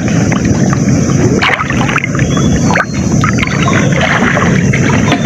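Muddy water sloshing and splashing as people wade chest-deep through it, with many short splashes throughout.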